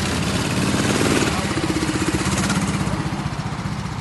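Go-kart engines idling with a steady low pulsing note. A second, higher engine note joins about a second in and lasts about a second and a half.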